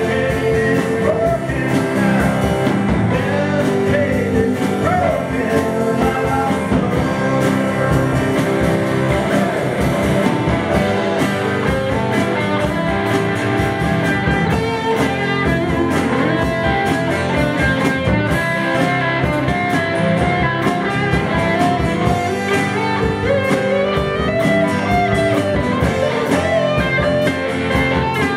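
Live rock band playing: electric guitar, acoustic guitar, bass guitar and drum kit, loud and continuous, with drum hits and gliding pitched lines running through the mid range.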